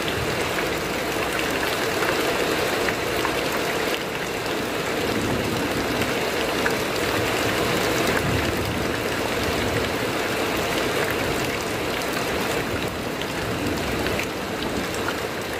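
Heavy rain falling on a corrugated metal roof: a steady, dense hiss of rain with many individual drops ticking sharply on the sheet metal.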